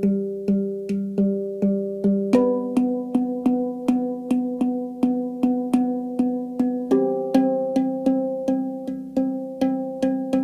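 Background music: a pitched instrument striking repeated notes about three times a second, each note ringing and fading, with the chord changing twice.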